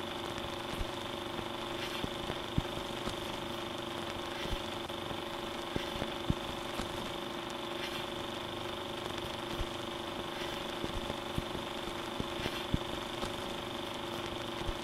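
Old, scratched film's soundtrack noise: a steady hiss and hum with several held tones, broken by irregular crackles and pops.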